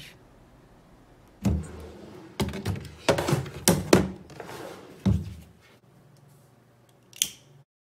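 A dresser drawer being handled, with a tablet put inside: a run of knocks and thuds as it slides and is pushed shut, the last about five seconds in. A single sharp click comes near the end.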